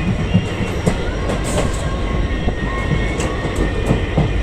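Train running on the track at speed: a steady low rumble of wheels on rails, with irregular sharp clicks from wheels passing rail joints and faint thin squealing tones.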